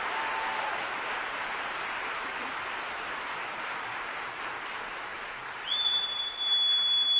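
Audience applauding, the last orchestral note dying away at the very start. Near the end a steady high whistle comes in over the clapping and is the loudest sound.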